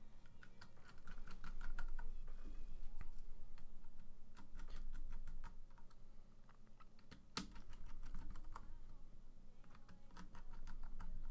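Irregular clicks and clacks of hands working on a half-built NOM60 stacked-acrylic keyboard: fingers pressing over the switch plate and handling the acrylic case, with one sharper click about seven seconds in.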